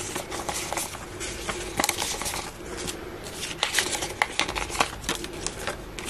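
Plastic polymer banknotes being handled and sorted into piles by hand, crinkling and rustling with many small irregular crackles.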